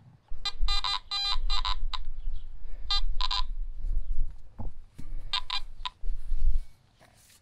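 Garrett AT Max metal detector giving several bursts of short, buzzy beeping target tones, over a low rumble.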